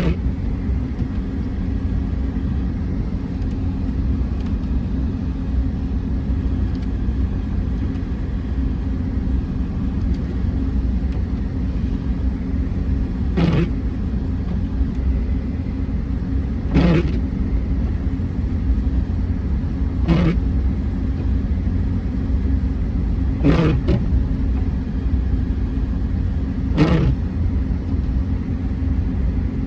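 Car driving at a steady speed, with a continuous engine and road rumble. From about halfway through, a short swish comes about every three and a half seconds, typical of windshield wipers clearing the glass.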